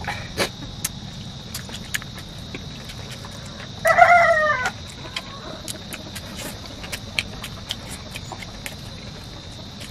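A chicken gives one loud, slightly falling call lasting under a second, about four seconds in, over faint scattered clicks.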